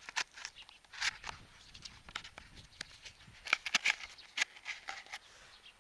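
Cardboard sliders being pushed by hand into slits cut in a cardboard kitchen-roll tube: scattered light scrapes and clicks, a few about a second in and more around the middle to end.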